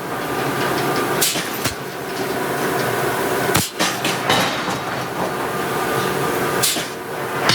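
Large hydraulic forging hammer striking steel three times, a couple of seconds apart, over the steady noise of forge-shop machinery.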